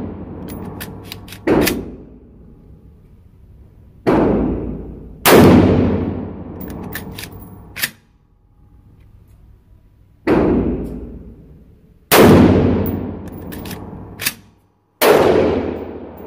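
AR-15-style rifle fired in slow single shots, about six reports a second or more apart, each loud crack trailing off in the range's echo, with light metallic clinks between shots.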